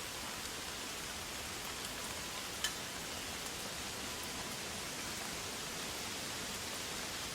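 Steady, even hiss of forest ambience, like rain or rushing water, with one sharp click about two and a half seconds in.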